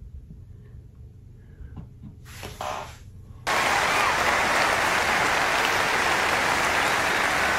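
Large crowd applauding, cutting in suddenly about three and a half seconds in and holding steady; before that, only a low hum and a few faint sounds.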